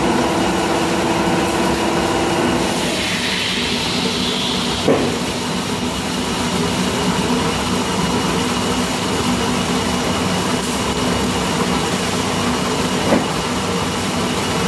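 Milking-shed machinery running with a steady drone while the milking plant is washed. A hiss comes near the start for about two seconds, and a couple of sharp metal clanks sound as the wire filter-sock cages are handled at the stainless steel milk filter.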